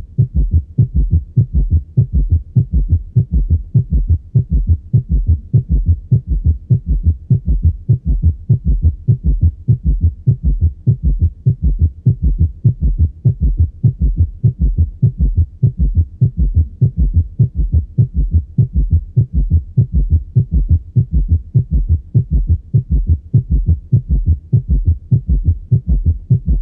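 Heart sounds heard through a stethoscope: a fast, steadily repeating galloping beat of low thuds. This is a summation gallop, where the third and fourth heart sounds merge at a fast heart rate, a sign of severe cardiocirculatory failure.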